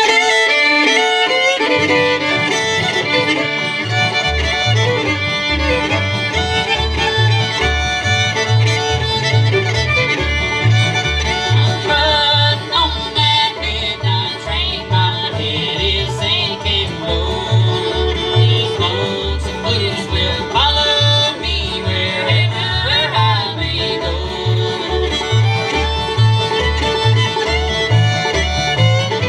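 Bluegrass band playing an instrumental passage: fiddle leading over five-string banjo, two acoustic guitars and an upright bass. The bass comes in with a steady beat within the first few seconds.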